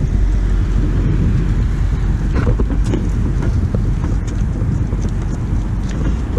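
Wind rumbling on the microphone, with a few knocks and rattles a couple of seconds in from a small boat trailer being pushed by hand over a grooved concrete ramp.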